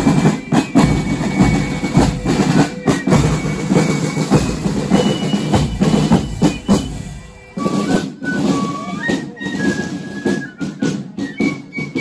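Fife-and-drum marching band playing on the march: snare drums, bass drum and cymbals beat a steady marching rhythm. A little past halfway, fifes come in with a high melody over the drums.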